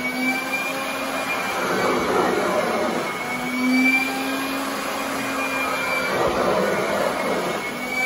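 Royal commercial upright vacuum cleaner running over carpet, a steady motor hum with a high whine, swelling and easing every couple of seconds as it is pushed forward and pulled back.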